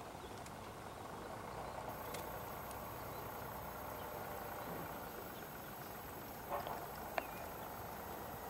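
Steady, fairly quiet outdoor background noise with no clear source, and a single sharp click about seven seconds in.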